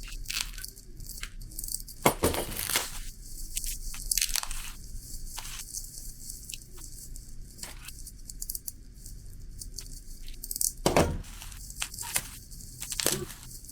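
Intermittent rustling and crinkling, as of something being handled, in several short bursts, the loudest a few seconds in and near the end.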